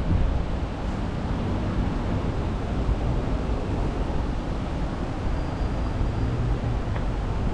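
Steady low rumble of wind buffeting the microphone, with even outdoor background noise. A faint thin high tone shows briefly a little past the middle.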